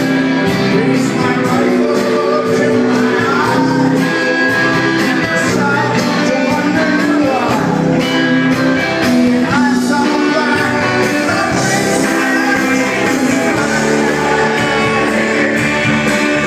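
Live rock band playing electric guitars and drums, with singing.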